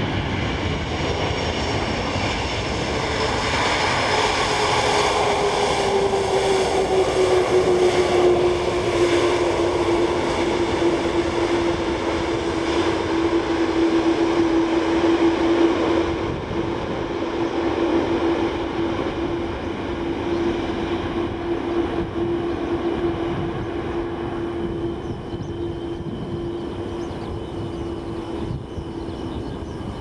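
Boeing 747-400 airliner's jet engines during the landing rollout on the runway: a dense jet rumble with a whine that slides down in pitch over the first several seconds and then holds steady. The noise is loudest in the middle and fades gradually over the second half as the jet slows and moves away.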